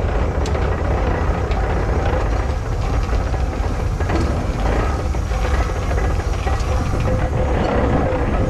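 Steam traction engine running as it rolls slowly past, a steady low mechanical rumble.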